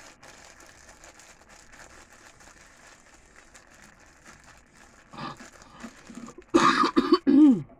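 A person coughing: a small cough about five seconds in, then two loud coughs near the end, the last trailing off with a falling pitch.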